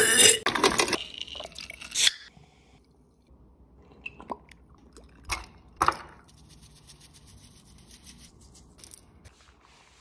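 A man gagging and spitting out a mouthful of food, loud and ragged for about the first two seconds, followed by a few faint sharp clicks.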